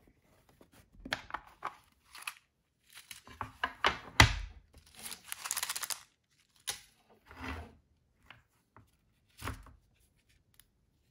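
Handling of an iFixit Mako driver kit's plastic case and contents on a wooden tabletop: scattered taps, clicks and scrapes, the loudest a sharp click about four seconds in. About a second of papery crinkling follows as the paper desiccant packet is handled.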